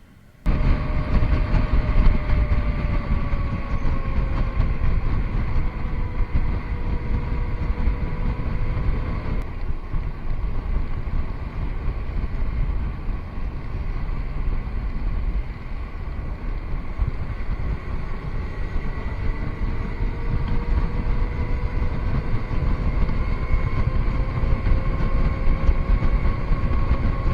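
Riding a motorcycle: heavy wind buffeting the action camera's microphone over the hum of the engine, whose pitch slowly falls, drops out about nine seconds in, and rises again later as the speed changes. The noise starts abruptly about half a second in.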